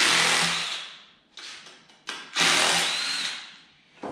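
Cordless drill-driver spinning bolts out of a Chevy LS 4.8 V8's top end in short runs: one at the start, a brief one about a second and a half in, and another a little past two seconds, each cutting in sharply and tailing off.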